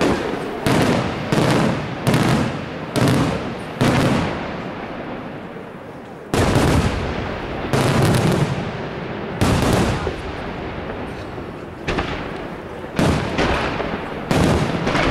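Aerial firework shells bursting in quick succession, each a sharp bang trailing off. A short lull comes about four seconds in, then a heavy bang about six seconds in, followed by more bangs.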